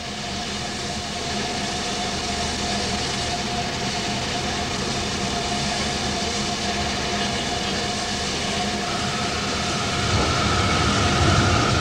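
Standing steam locomotive hissing steadily. A higher tone joins about nine seconds in and the hiss grows louder near the end.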